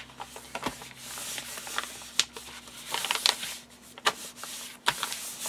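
Hands rubbing and smoothing a freshly glued paper page down onto cardstock: a dry rubbing and rustling of paper, broken by a few sharp clicks and crackles.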